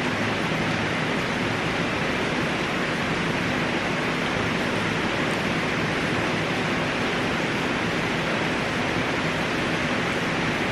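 Steady rushing noise with a faint low hum beneath it, unchanging throughout.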